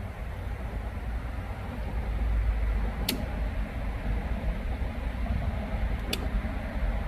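Low steady rumble with two sharp clicks, about three seconds and six seconds in, as the circuit breaker panel is worked and a breaker is switched back on.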